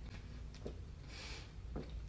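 Faint sounds of a person chugging a can of soda: two soft gulps about a second apart, with a hissing breath between them.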